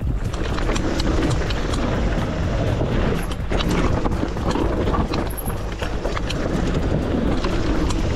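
Cube Two15 downhill mountain bike riding fast downhill over paving stones and dirt: a dense, steady rolling rumble from the tyres and bike, broken by many sharp clicks and rattles from the bike's parts.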